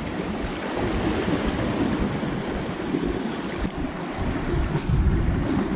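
Sea waves washing against a rocky shore, with wind buffeting the microphone. A high steady hiss in the background cuts off suddenly about two-thirds of the way through.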